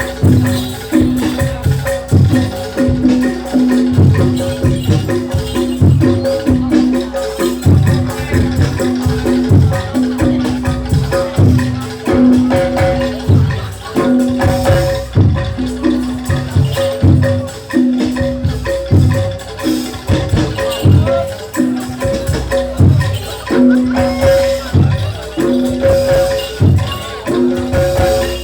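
Live jaranan gamelan music: drum strokes in a steady, even beat under metallophones, with long held tones sounding again and again over the top.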